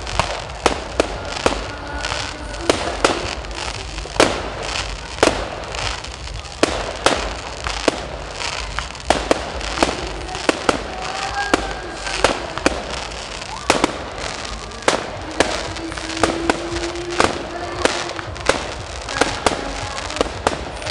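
Fireworks finale: a dense, irregular barrage of aerial shell bursts, two or three sharp bangs a second over a continuous crackle.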